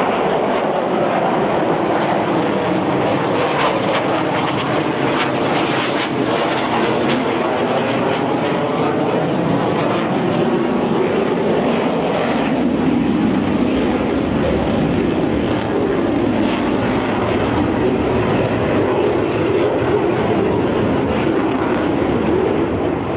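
Loud, continuous aircraft engine noise from planes flying overhead. About twelve seconds in, the pitch falls as one aircraft passes.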